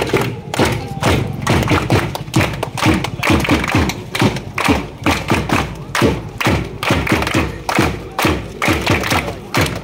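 Hand drum beating a steady rhythm of about two to three strokes a second, with performers clapping along.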